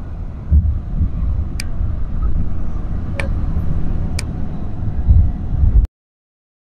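Steady low rumble of road and engine noise heard from inside a moving vehicle on a highway, with a few faint sharp clicks. It cuts off suddenly near the end into dead silence.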